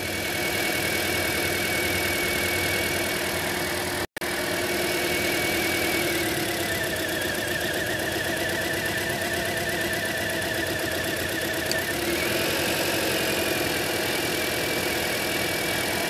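2010 Toyota Corolla 1.8 L four-cylinder engine idling with a steady drone and a whine. The note dips for several seconds in the middle and comes back up, as during an ignition-coil unplugging test on an engine misfiring on cylinder 1 with a dead ignition coil (P0301).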